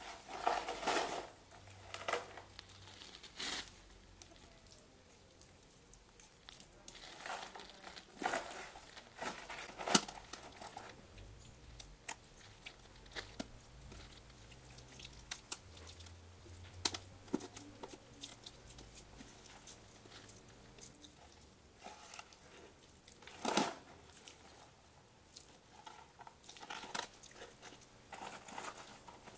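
Hands pressing and patting wet mud into shape around a bottle: irregular crackling, crunching and squishing handling noises with scattered sharp clicks and a few louder bursts.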